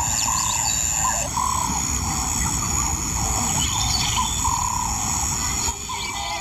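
African bush ambience: a bird repeating a short arching whistled call over and over, with a steady high insect drone behind it.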